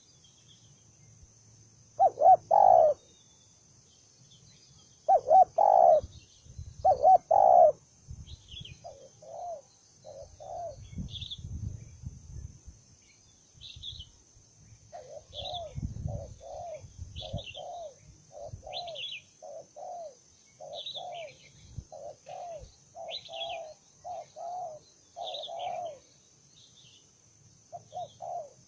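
Spotted dove cooing: three loud coo phrases in the first eight seconds, then a long run of quieter, quicker coos at about two a second. Small birds chirp faintly in high notes, over a steady high-pitched whine.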